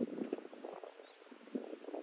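Outdoor ambience: soft, irregular rustling and crackling with no clear tone or rhythm.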